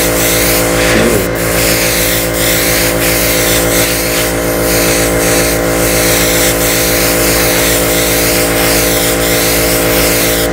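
Small piston airbrush compressor running steadily with a constant motor hum, under the hiss of airbrushes spraying white base-coat paint onto crankbait lures.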